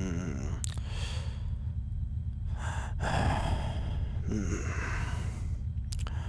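A person sighing and breathing audibly, with a wavering voiced sigh at the start and another about four seconds in, over the steady low drone of an airliner cabin.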